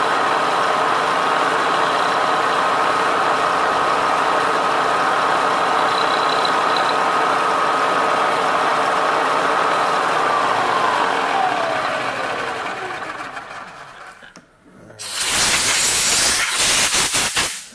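Milling machine spindle running with a steady whine over a hiss during a light cleanup cut. About ten seconds in, the whine falls in pitch and fades as the spindle spins down. Near the end comes a loud burst of hissing, about two and a half seconds long.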